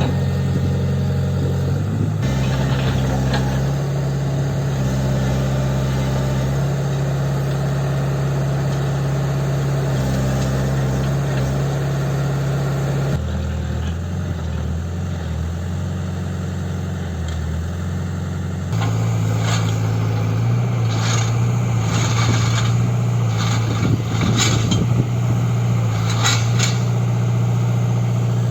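Tata Hitachi Zaxis 120 excavator's diesel engine running steadily, its pitch shifting a few times. In the last third, a series of sharp knocks comes over it.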